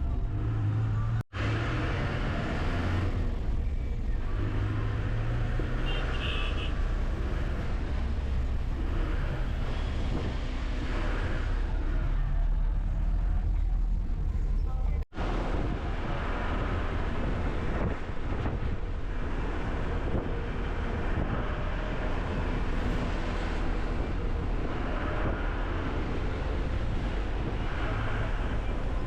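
A car driving: steady engine and road rumble, broken twice by a sudden brief dropout, about a second in and again about halfway through.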